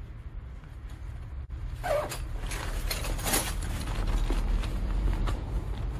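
Rustling and crinkling of a nylon tool bag being handled, mostly between about two and three and a half seconds in, over a low rumble that grows louder in the second half.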